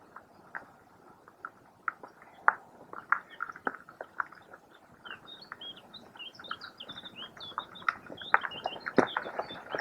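Small birds chirping and singing, the chirps growing busier in the second half, over scattered light taps and clicks.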